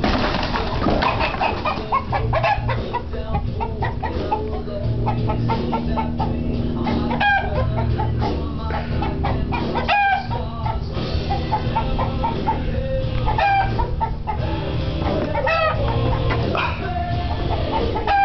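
Chickens clucking, with a rooster crowing now and then, over background music with a steady, repeating bass line.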